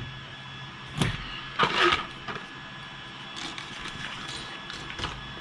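Small plastic and metal RC car parts being handled and set down on a work surface: a sharp knock about a second in, a short clatter just after, then a few lighter clicks.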